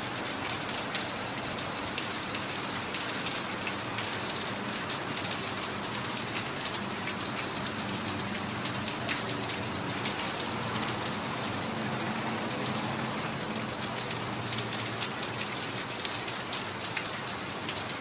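Steady rain falling, an even hiss dotted with the small ticks of individual drops hitting a surface.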